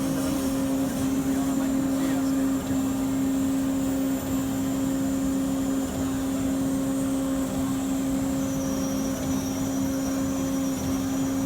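Intermac Master One CNC glass machining centre running: a steady hum with a thin high whine that drops to a lower pitch about eight and a half seconds in.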